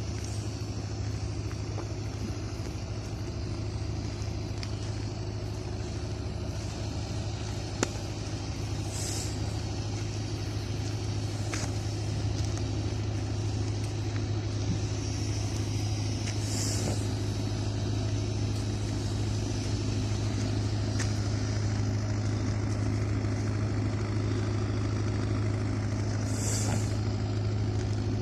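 A heavy engine running steadily at a constant speed, with a few short hisses.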